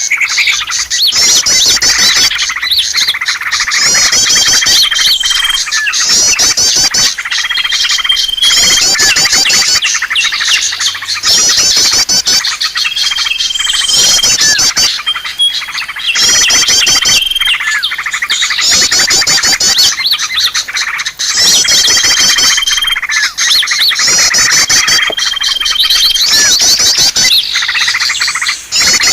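Many small birds chattering loudly in a dense mix of fast chirps and trills, with a short, steady whistled note repeating every few seconds: a recorded bird-lure call meant to draw wild small birds.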